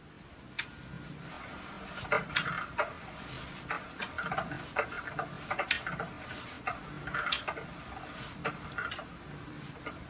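Short smacking kisses with breaths, about one every second and a half, as a man lowers his face to a cat at the bottom of each push-up.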